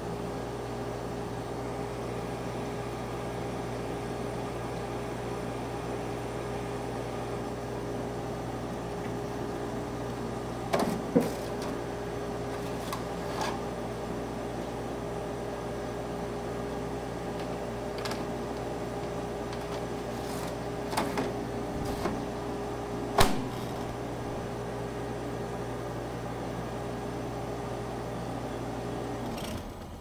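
A 1997 Electrolux 7,500 BTU window air conditioner, built by Sanyo, running with a steady hum. Several sharp plastic clicks and knocks come in the middle as its front filter panel is handled, the loudest one near the end of that stretch. Near the end the unit is switched off at its knob and the hum stops suddenly.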